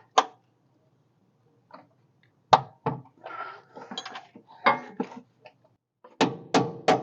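Hammer blows on metal, knocking a misaligned part of a 1981 Corvette's rear shock mounting into line. The blows are sharp and irregular, with a ringing scrape in the middle and a quicker run of three near the end.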